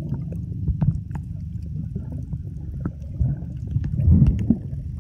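Water churning and bubbling, heard with the microphone underwater: a low, muffled rumble with scattered clicks and bubble pops.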